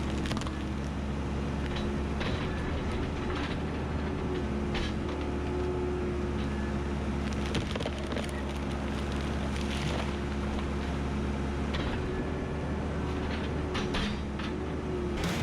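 Backhoe's diesel engine running steadily, with scattered cracks and knocks over it.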